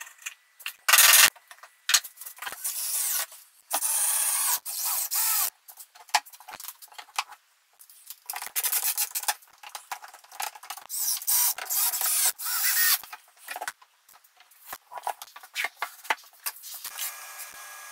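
Hand rasp scraping wood in uneven strokes with short pauses between them, cleaning out the notch of a lap joint in pine.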